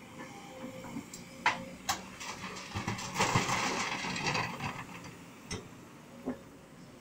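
Broken rock and earth pouring from an excavator bucket into a steel dump-truck bed: a dense clattering rush about three seconds in, lasting a second or so, with a few sharp knocks of stones before and after. A faint steady engine hum runs underneath.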